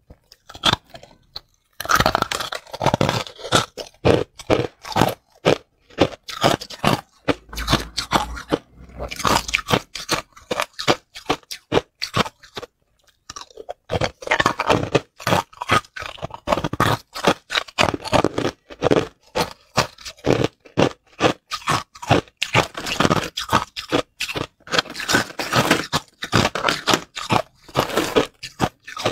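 Hard ice being bitten and chewed in the mouth, picked up close by a clip-on microphone: rapid, dense crunching and cracking that goes on almost without a break, with one short pause about twelve seconds in.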